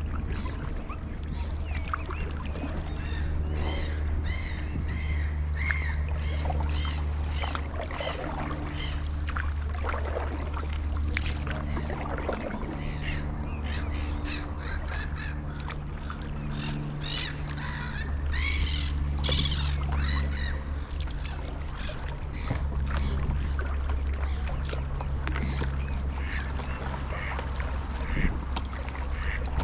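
Water birds calling in runs of repeated, evenly spaced calls, about two a second: one run a few seconds in and another past the middle. A steady low rumble lies underneath.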